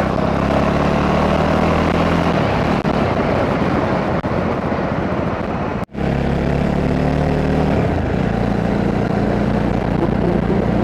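Jawa 42 motorcycle's single-cylinder engine running on the move, with wind rushing over a helmet-mounted microphone. The engine note eases about two seconds in, and the sound drops out for an instant near the middle at an edit cut before the engine returns.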